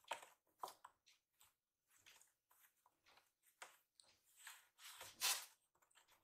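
Short, scratchy scuffs on a corrugated cardboard cat scratcher as a kitten paws and claws at a finger rubbing over it, with the longest scrape about five seconds in.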